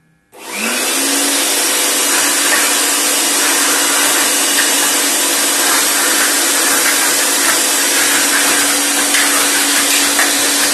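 Handheld electric air blower switched on right at the start: its motor whines up to speed within about a second, then runs steadily at full speed with a loud rush of air.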